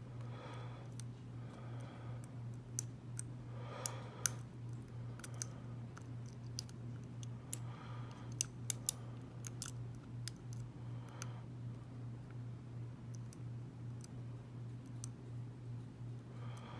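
Dimple pick working inside a Keyways dimple lock cylinder under tension: scattered small metallic clicks and scrapes, several close together in the middle stretch. A steady low hum runs underneath.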